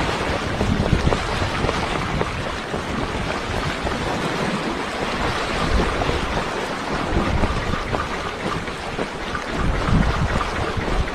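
Sea waves washing and splashing against shoreline rocks in a steady surge, with wind gusting on the microphone.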